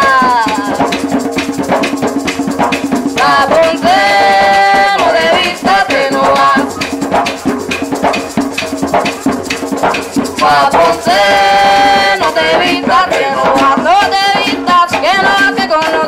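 Live Puerto Rican bomba music: a woman singing over a maraca rattling steadily and barrel drums, with long held sung notes about four and eleven seconds in.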